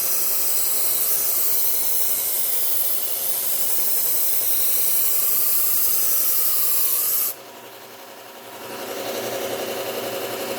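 A chef's knife edge being ground on a slow speed belt sander's Cubitron 120-grit belt, a loud steady rasping hiss as the bevel is set and a burr raised. About seven seconds in the blade comes off the belt and the rasp stops suddenly, leaving the sander running quietly with a faint regular pulsing.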